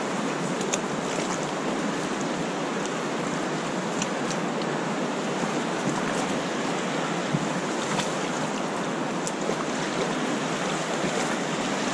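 Steady rush of flowing river water, even and unbroken, with a few faint clicks.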